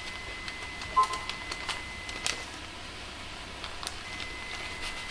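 Light scattered clicks and crackles of dry onion soup mix being shaken from its packet over browned ground beef and cabbage in a pan, with one sharp tick about a second in. A faint steady high tone drops out midway and comes back near the end.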